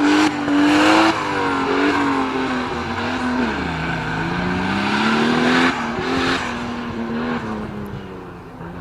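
Off-road competition 4x4's engine revving hard under load, with a broad hiss over it. Its pitch drops about three and a half seconds in, climbs again, then eases off and grows quieter near the end.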